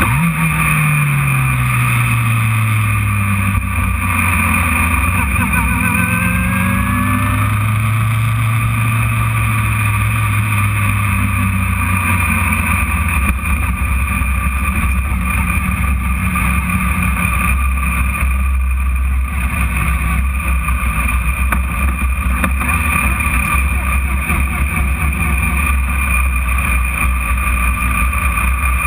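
Radical sports racer's engine heard onboard. A short rise in revs just after the start falls away over the next few seconds, holds at a moderate steady pitch, then settles to a low steady idle-like drone from about twelve seconds in as the car rolls slowly.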